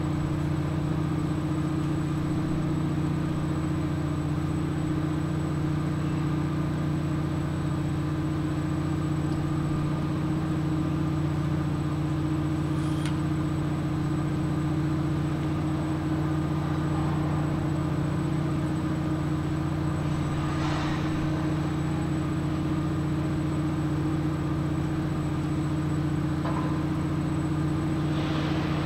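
An engine running steadily, a low even hum that holds the same pitch throughout.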